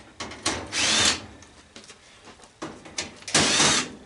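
Power drill spinning a 1/4-inch magnetic nut driver bit in two short bursts, about half a second and three and a half seconds in, backing screws out of the gas stove's sheet metal. Small metal clicks come between the bursts.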